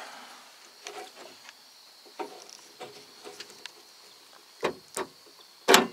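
Scattered light taps and clicks at a 1986 Ford F-150's door as the power door lock switch is worked, with two louder clunks near the end. The tapping is done to free a sticking door lock actuator, which the owner takes to be failing.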